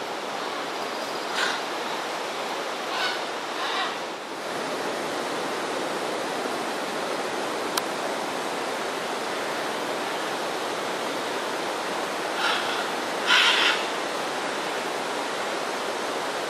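Scarlet macaws giving short squawks, a few scattered calls in the first four seconds and the loudest ones about twelve to fourteen seconds in, over a steady rushing background noise.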